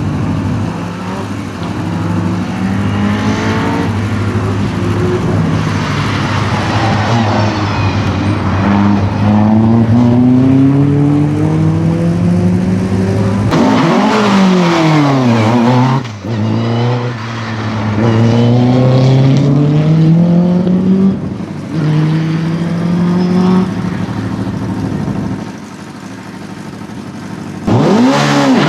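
Racing car engine at full throttle, rising in pitch through each gear and dropping back at every upshift, about every two to three seconds. Partway through the pitch sweeps sharply down and back up as the car goes past close by, and it fades for a couple of seconds near the end before a loud car passes again.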